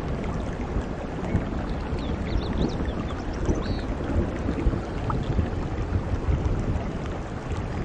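Steady heavy rain falling on tropical foliage: an even, continuous rush with a strong low rumble. A few faint high chirps come through about two to four seconds in.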